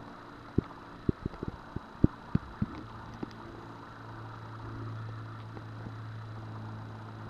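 Irregular low thumps of footsteps, picked up by a hand-held camera, for the first few seconds. A steady low hum follows for the rest.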